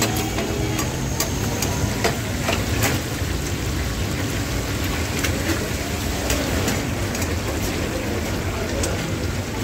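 Chapli kababs and eggs deep-frying in a large karahi of hot oil: a steady, dense sizzle with scattered sharp pops.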